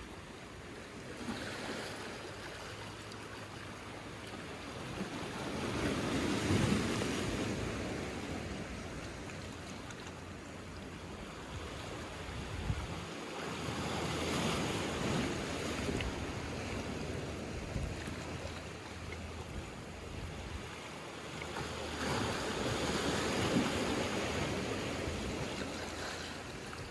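Small sea waves washing in over rocks and stones at the shoreline. They swell and ebb three times, a surge about every eight seconds.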